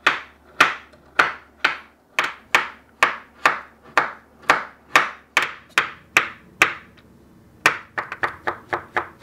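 Kitchen knife chopping cacao butter on a wooden cutting board: sharp, even chops about three a second, a pause of about a second, then quicker, lighter chops near the end.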